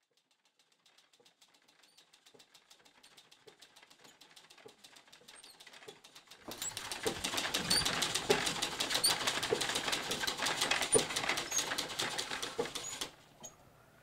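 A machine clattering with rapid, even clicks, faint at first and growing louder, jumping much louder about six and a half seconds in, then cutting off about a second before the end.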